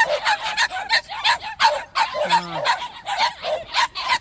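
Several puppies barking over and over in quick yaps, about three or four barks a second.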